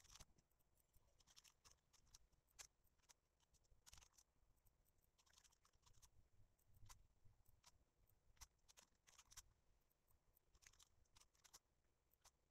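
Near silence: faint room tone with a few scattered soft clicks.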